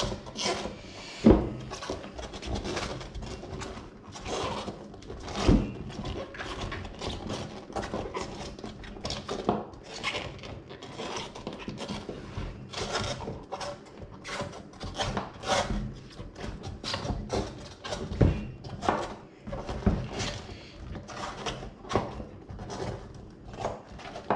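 A rubber inner tube being pushed and worked by hand into a Vespa scooter tyre: continual irregular rubbing and rustling of rubber on rubber, with a few louder knocks.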